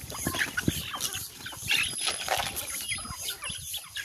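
Farmyard poultry let out of a pen: a mother hen and her chicks making short clucks and cheeps among scattered scratching and rustling.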